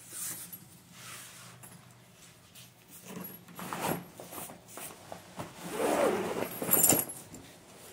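A zipper on the fabric carry case of a Goal Zero Boulder 100 solar panel is pulled open in several strokes, with fabric rubbing as the case is worked around the panel. A sharp click comes near the end.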